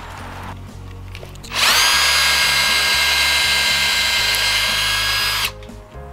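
Electric drill spinning up quickly and running at a steady high whine for about four seconds as it bores a hole into a dry eucalyptus branch, then stopping abruptly.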